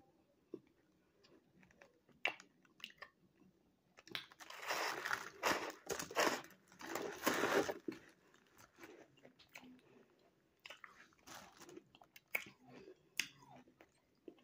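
A person biting into and chewing a block of frozen cornstarch mixed with ice. There are scattered crisp crunches, then about four seconds of loud, continuous crunching as a mouthful is chewed, then sparser crunches and clicks.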